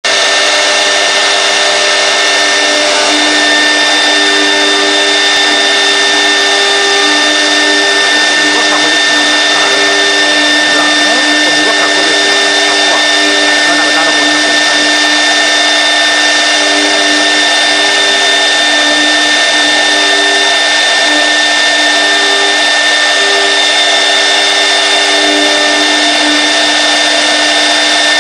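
Air-cooled spindle of a CNC router running at speed, its grinding wheel working a wet stone slab. It makes a steady high whine over a lower hum that comes and goes.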